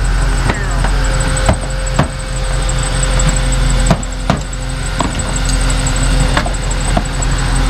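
A vehicle engine idling steadily, with about eight sharp, irregular knocks and clicks over it as a car's plastic bumper cover or trim is pushed and snapped back into place.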